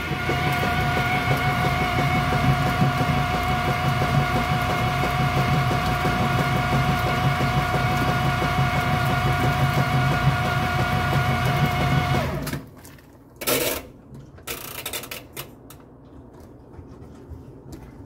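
Kenmore top-load washing machine running with a loud, steady pitched drone, the noise its owner complains of, which cuts off abruptly about twelve seconds in. A few short knocks follow near the end.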